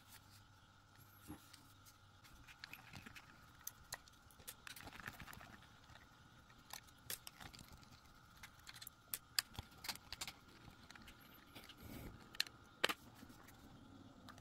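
Small scattered clicks and taps of a black plastic housing being handled and pried at its seam with a thin metal tool, with the sharpest clicks coming about two-thirds of the way through.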